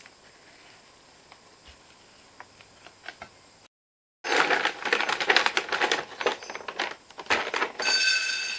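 A dog eating dry food from its bowl: dense, irregular crunching and chewing that starts loud about four seconds in, after faint scattered ticks, with a brief ringing tone near the end.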